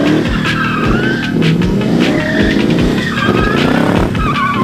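Ford Mustang drifting: the engine revs up and down while the tires squeal again and again in wavering bursts, with background music over it.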